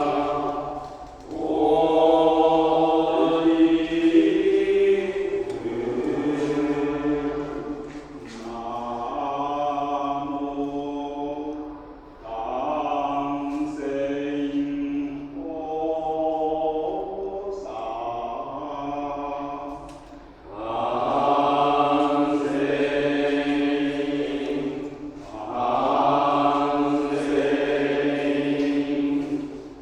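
Buddhist monks chanting together, held pitched phrases of a few seconds each, separated by short pauses.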